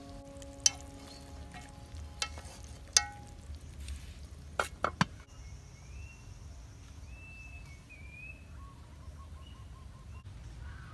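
Aluminium pot lid and chopsticks clinking against a cooking pot: a few sharp metallic clinks with a short ringing tone. After that come birds chirping and a brief trill over a low steady outdoor background.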